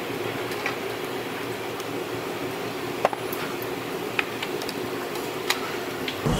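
Steady ventilation hum with a few sharp, scattered clicks of metal chopsticks and tableware against plates.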